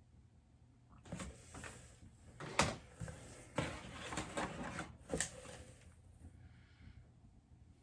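Product packaging being handled and turned over, with rustling and several sharp clicks and knocks. The loudest is about two and a half seconds in, and the sounds die down near the end.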